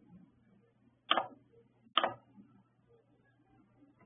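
Two short, sharp clicks, about a second in and again a second later, over a faint steady low hum.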